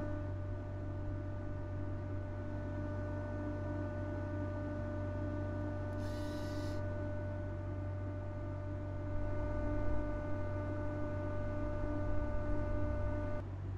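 Steady electrical hum with several steady high whine tones from a camera-robot arm's motor drives. A brief hiss comes about six seconds in, and low rumbling follows in the second half.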